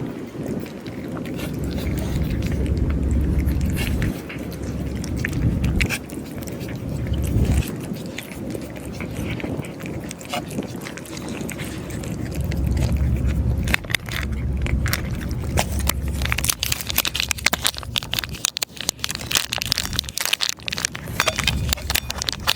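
Cats eating dry food, a crunching and clicking that grows denser in the last few seconds. A low rumble comes and goes underneath.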